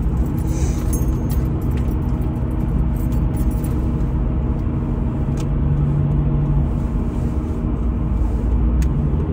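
Steady engine and road rumble inside the cabin of a moving car.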